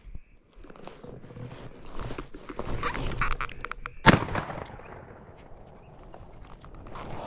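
A single shotgun shot about four seconds in, sharp and loud with a short tail, from a single-shot shotgun fired at a blue grouse. Before it, a couple of seconds of rustling movement.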